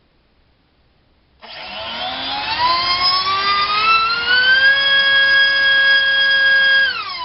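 Racerstar BR2406S 2300 kV brushless motor spinning a Gemfan 4045 three-blade bullnose propeller on a 5S battery during a thrust test. It starts about a second and a half in, and its whine rises in pitch as the throttle comes up over about three seconds. It holds steady, then drops quickly as it is throttled back near the end.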